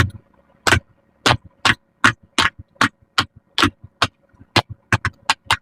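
Silicone pop-it fidget toy bubbles being pressed one after another: a string of sharp pops, about three a second, coming faster toward the end.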